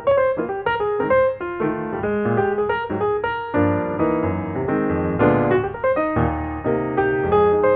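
Background piano music: a steady run of struck notes over chords.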